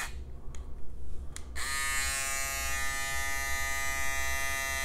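BaByliss Pro FoilFX cordless foil shaver's motor buzzing with a steady, even hum. It cuts out at first, two clicks follow, and it starts again about a second and a half in and runs steadily.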